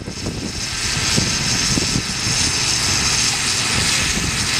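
Radio-controlled scale Bell 47 model helicopter running on the ground with its main rotor turning: a steady high-pitched engine and rotor noise that swells over the first second, over a rough low rumble of heavy wind buffeting the microphone.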